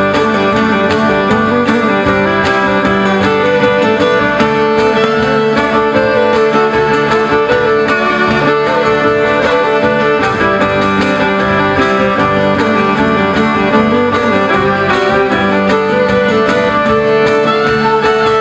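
A live folk band plays an instrumental passage, with the fiddle leading over strummed acoustic guitars and plucked strings, and a cajon keeping a steady beat.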